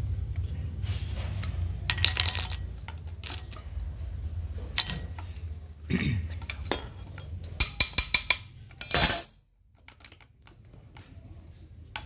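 Metal parts of a washing machine motor clinking and knocking as the rotor and aluminium end housing are handled and fitted together. There are scattered clicks, a quick run of clicks about eight seconds in, and a loud scrape about nine seconds in.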